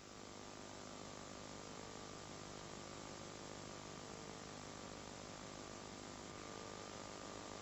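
Steady background hiss with a constant electrical hum of several steady tones, the recording's own noise floor between narrated lines.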